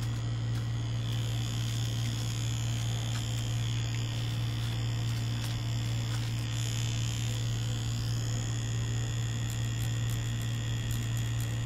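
Tattoo machine running with a steady, even buzz as it works the needle.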